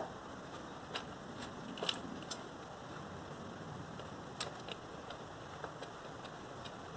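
A few faint, scattered clicks and taps of a small screw and metal bracket being fished by hand into place against the secondary air combination valve and engine block, over a steady low hiss.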